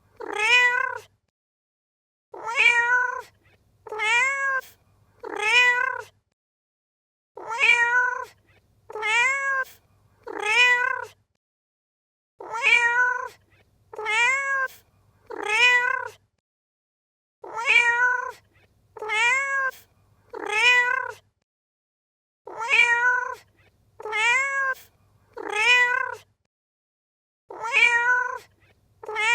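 Domestic cat meowing in sets of three short meows, each rising then falling in pitch. The sets repeat every five seconds as an identical loop.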